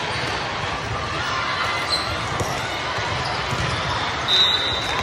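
Echoing din of a busy indoor volleyball tournament hall: many voices from crowds and players across the courts, with scattered ball hits. A short high whistle blast sounds near the end.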